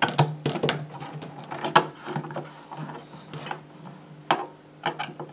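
Plastic battery cover of a Metrel EasiTest MI 2087 multifunction tester being worked loose and pulled off its case: scattered plastic clicks and knocks, the loudest a little under two seconds in and again past four seconds.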